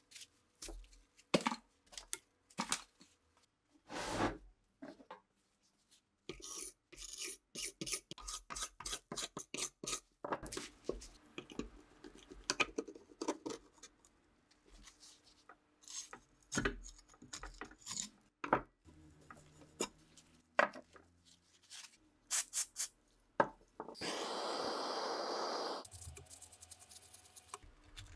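Rusty steel parts and the wooden stock of an old rifle being handled, knocked and scraped against a plastic-covered workbench, giving scattered clicks, knocks and scrapes. Near the end comes a steady noise lasting about two seconds.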